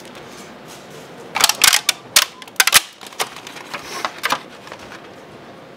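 Plastic takeout food containers being handled and opened: a quick cluster of sharp clicks and snaps about a second and a half in, then a few lighter clicks.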